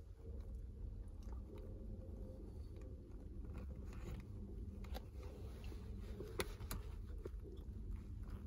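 Sock-clad feet sliding into Allen Edmonds Cody leather tassel loafers: leather and fabric rubbing with faint scratchy rustles and two sharp clicks about six and a half seconds in, over a steady low rumble.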